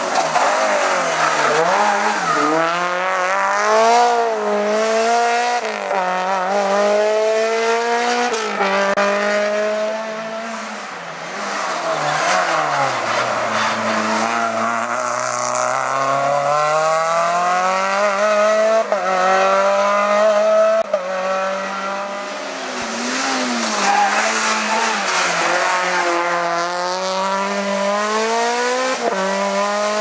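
Renault Clio rally cars driven hard up a hillclimb stage. The engine note climbs steeply in each gear and drops back at every shift, falls to a low pitch about halfway through, then builds again through the gears.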